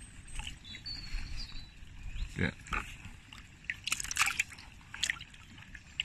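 Water sloshing and splashing in a plastic bucket as hands grope for and cup a small carp. There is a flurry of splashes about four seconds in.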